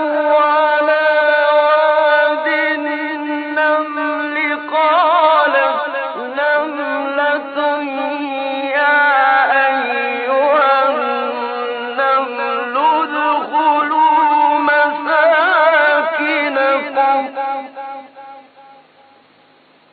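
A male Quran reciter chanting in a melodic style, drawing out long ornamented notes whose pitch wavers and turns. The voice stops near the end, leaving a steady hiss.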